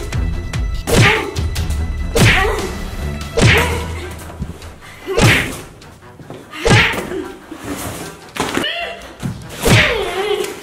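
Inflatable vinyl beach float swung against an inflatable cockroach on a wall: about seven hollow thumps, each a second or two apart, over background music.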